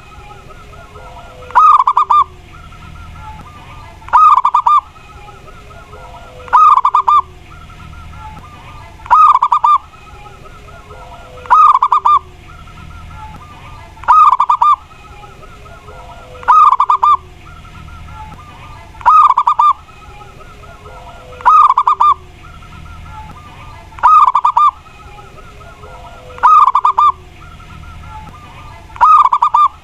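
A perkutut (zebra dove) singing its trilled cooing song. The loud phrase repeats at an even pace, about once every two and a half seconds, with softer low coos in between.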